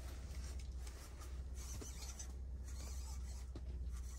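Quiet scratchy rustling of winter clothing and fishing gear being handled, over a steady low hum.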